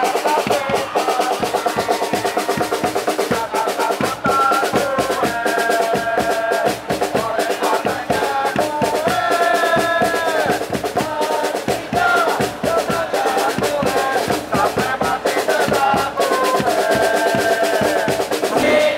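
Music with a fast, driving drum beat under a held, gliding melody line.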